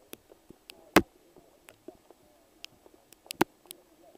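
Two sharp knocks, one about a second in and a louder double one near the end, over scattered faint clicks and distant voices.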